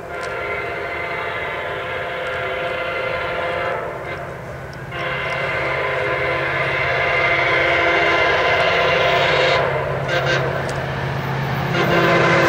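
MARC commuter train's locomotive horn blowing a series of long blasts with brief breaks between them as the train approaches a grade crossing, getting louder as it closes in. The locomotive's low engine sound rises beneath the horn near the end.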